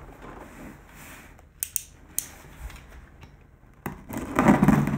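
A few sharp clicks, then from about four seconds in a loud rough scraping as a utility knife blade slices along the packing tape on top of a cardboard box.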